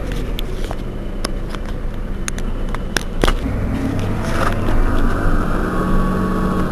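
Heuliez GX 127 city bus engine running at a standstill, with a string of sharp clicks in the first half. After a short burst about four and a half seconds in, the engine note becomes steadier and stronger.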